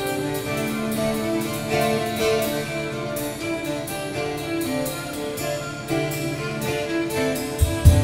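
Instrumental background music: plucked notes over sustained string-like tones, with a strong deep low note just before the end.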